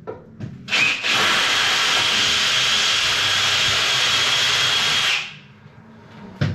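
Power drill boring a hole into the wall for a wall plug: one steady run of about four and a half seconds that starts and stops abruptly. A short knock comes near the end.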